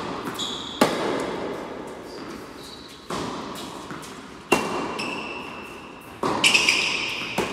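Indoor tennis rally: the ball being struck off racket strings and bouncing on the hard court, about five sharp hits each trailing off in the echo of the hall, with a quick run of hits and bounces near the end. Short high squeaks of tennis shoes on the court come in between.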